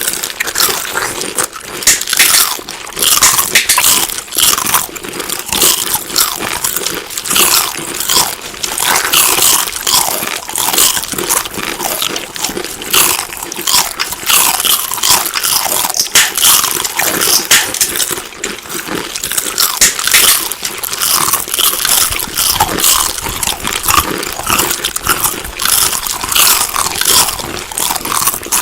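Close-miked crunchy chewing and biting of food: dense, irregular crackling crunches.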